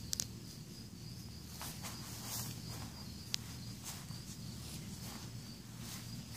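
Outdoor ambience: a steady high insect trill in the background, with a few light clicks and rustles in the grass.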